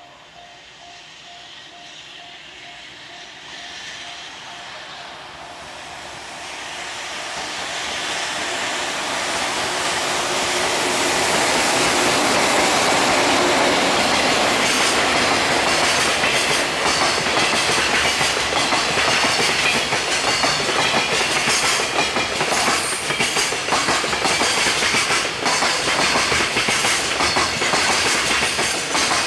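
Long container freight train hauled by a JR Freight EF200 electric locomotive, growing steadily louder over the first ten seconds or so as it approaches. The wagons then pass close by at a steady loud level, their wheels clattering over the rail joints.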